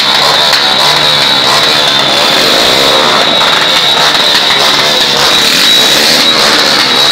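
Many motorcycles and scooters riding together in a procession, their engines blending into one loud, constant noise with a steady thin high tone over it.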